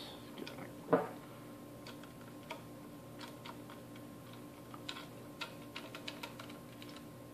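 Faint, irregular clicks and taps of a small screwdriver working on a screw in the circuit board inside a plastic VoIP adapter case, along with handling of the case. There is one louder knock about a second in and a run of quick light ticks in the second half.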